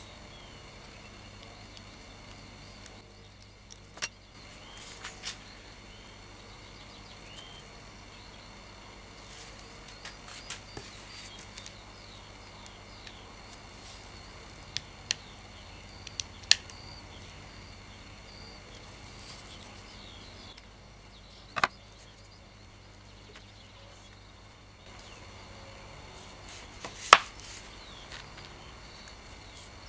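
Scattered sharp metallic clicks and taps of a small open-end wrench on the nut of a hand-drill crank handle and of the small steel parts being set down on the bench, the loudest near the end, over a faint steady hum.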